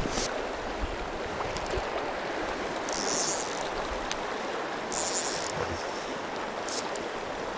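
Steady rushing of a fast-flowing river, an even wash of water noise, with two brief high hissing sounds about three and five seconds in.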